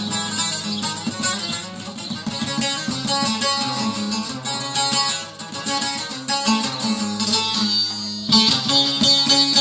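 Two bağlamas (long-necked Turkish saz) played together, an instrumental passage of a türkü with quick plucked notes. The playing gets louder and brighter about eight seconds in.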